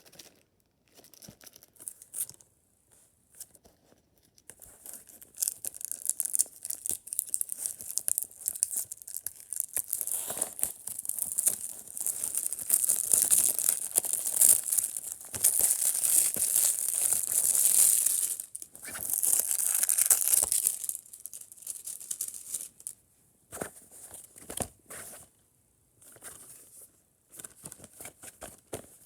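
Plastic shrink-wrap being torn and peeled off a 4K Ultra HD Blu-ray case, with continuous crinkling and tearing for about fifteen seconds. After that come scattered short clicks and knocks from handling the case.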